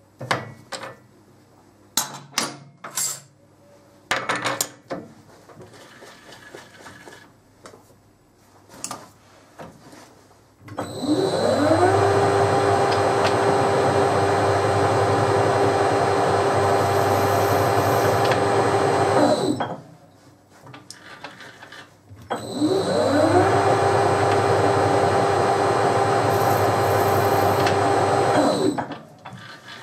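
A workshop machine's electric motor starts twice, each time winding up with a rising whine and then running steadily. The first run lasts about nine seconds and the second about six and a half, and each stops abruptly. Before the first start there are a few sharp clicks and knocks of handling.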